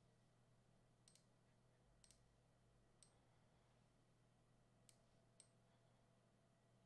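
Near silence broken by about five faint computer mouse clicks, spaced irregularly.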